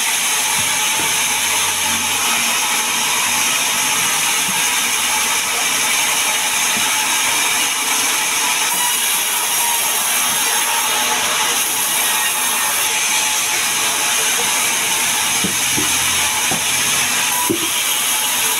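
Vertical band sawmill running with a steady high whine and hiss as a sengon (albizia) log is fed into the blade; the high part of the sound changes from about nine seconds in while the blade is in the log.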